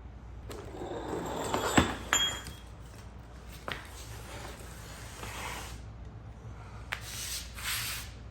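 Handling and rubbing noise with two sharp clinks of hard objects about two seconds in, each ringing briefly, and lighter knocks later.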